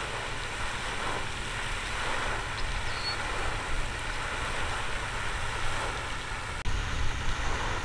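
Steady rushing and splashing of a pond aerator fountain spraying its jet into the water, with wind buffeting the microphone as a low, fluttering rumble.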